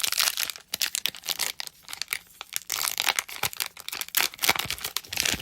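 Foil Pokémon booster pack wrapper being crinkled and torn open: a dense run of irregular crackling rustles.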